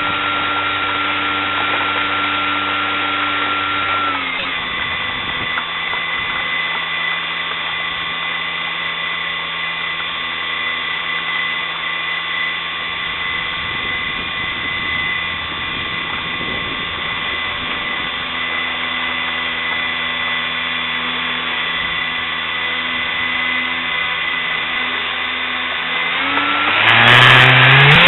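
Brushless electric motor and air propeller of a radio-controlled airboat, heard from its onboard camera: a steady high whine over a lower hum. The pitch drops a little about four seconds in, and near the end it drops again as a loud rushing noise comes up.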